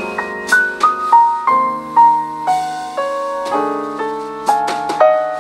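Background piano music: a melody of single struck notes, stepping downward at first, over held lower chords.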